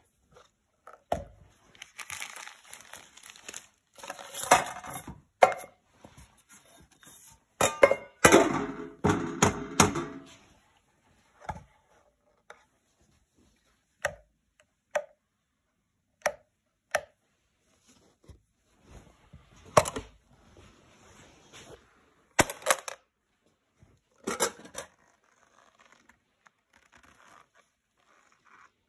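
Handling noises from the metal case of a CD V-715 survey meter as it is opened and the instrument lifted out. There are irregular clicks, knocks and scraping rustles, with a loud cluster about eight to ten seconds in and single sharp knocks near twenty, twenty-two and twenty-four seconds.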